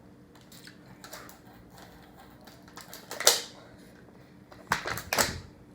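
Close-up eating sounds from chicken in spicy sauce: soft scattered mouth clicks, with one loud smack a little after three seconds and a quick cluster of louder smacks about five seconds in.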